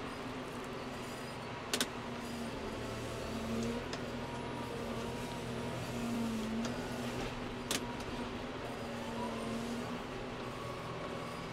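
John Deere tractor's diesel engine running under load, its pitch rising and falling as the front loader lifts and carries a bucket of muck. Two short sharp knocks stand out, about two seconds in and again near eight seconds.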